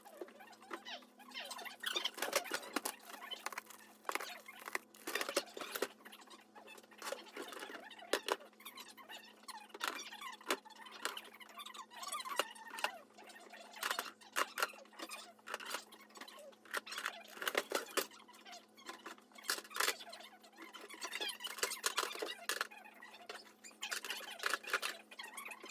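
Irregular rustling, clicking and light knocking of packets and drink cans being handled while a vending machine is restocked.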